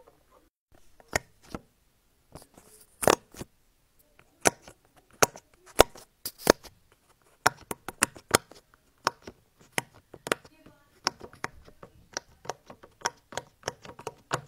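Bubbles of a silicone pop-it fidget toy being pressed in one after another by a finger, each giving a sharp pop, at an irregular few pops a second starting about a second in.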